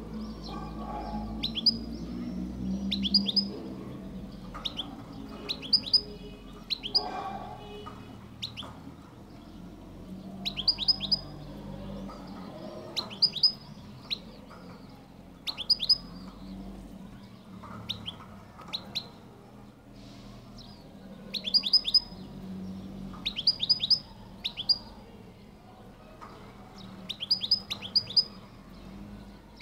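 El Kala goldfinch (European goldfinch) singing: clusters of one to four sharp, falling high notes repeated about every two seconds, over a low steady hum.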